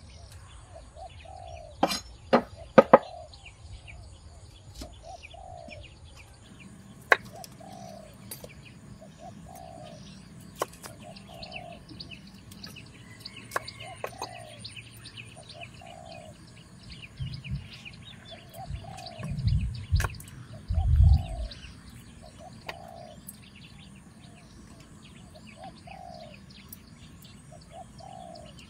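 Birds calling: one bird repeats a short call at an even pace, about once every second and a half, over lighter chirping and a steady high hiss. Four sharp knocks come about two seconds in, and a few low thuds come a little past the middle.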